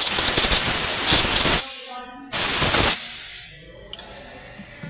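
Compressed-air blow gun blasting air onto a fuel filter wiring connector to clear it before reseating: a long loud hiss that stops about a second and a half in, then a second short blast about a second later.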